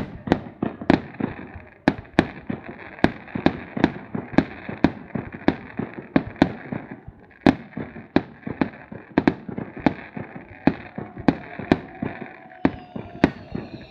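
Fireworks going off: a rapid, continuous series of sharp bangs, about two to three a second, over a steady crackle, with faint whistles near the end.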